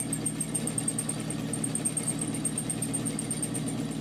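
Sewing machine running a seam: the motor hums under a fast, even ticking of the needle, with a brief pause about a second and a half in before it picks up again.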